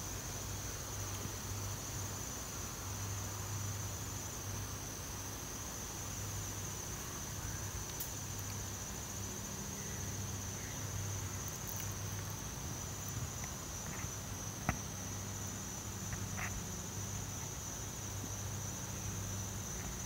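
Steady chorus of insects singing, an unbroken high trill, with a low hum beneath it and a couple of faint clicks.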